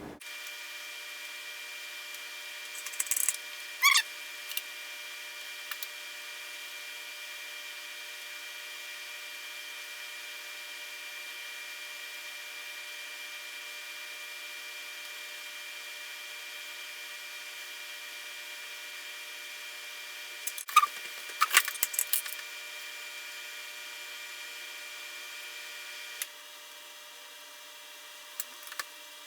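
Steady electrical hum at a soldering bench, with short clusters of light clicks and taps from tools being handled, about three to four seconds in and again around twenty-one seconds in. Part of the hum cuts out sharply near the end.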